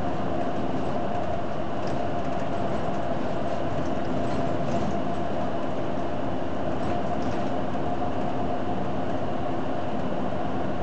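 Inside a Hino Blue Ribbon City Hybrid bus cruising at steady speed: a continuous drivetrain hum with road and tyre noise, and a few faint rattles.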